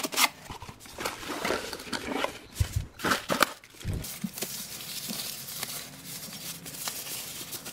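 Unpacking noise: a foam insert pulled from a cardboard box, then plastic bags around a dome camera and its cable crinkling and rustling as they are handled, with a few light thumps of items set down on the table.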